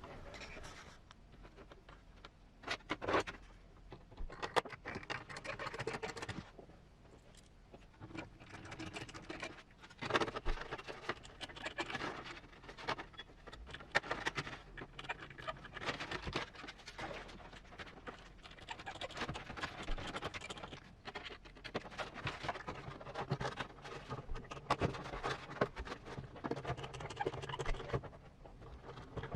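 Hands working on a plastic RC truck body and its small parts on a workbench: irregular clicks, scratches and scrapes.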